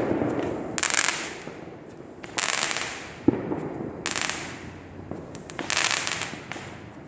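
Neighbourhood fireworks going off: repeated bursts of crackling about every one and a half seconds, with a sharp single bang at the start and another a little past three seconds in.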